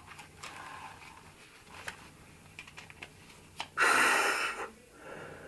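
A few light clicks as the strap clips of an elastomeric P100 half-mask respirator are fastened behind the head, then one loud breath through the mask, just under a second long, about four seconds in.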